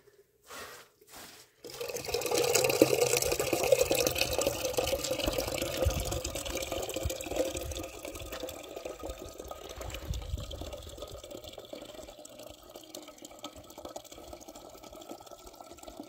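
Water running and splashing. It starts suddenly about one and a half seconds in, is loudest over the next several seconds, then goes on more softly.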